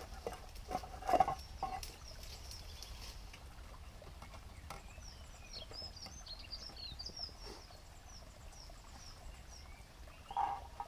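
A few knocks of sticks being fed into a Solo Stove Titan wood-burning stove in the first two seconds, then small birds chirping, many quick high notes.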